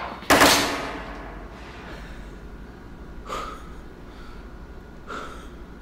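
A single pistol shot going off as a duel begins, ringing out and fading over about a second. Two much fainter short sounds follow, about three and five seconds in.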